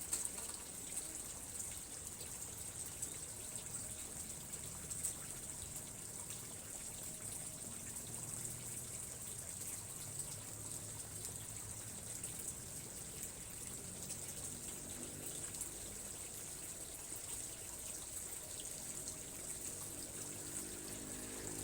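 Steady running or trickling water with an even high hiss over it, and faint distant voices murmuring now and then.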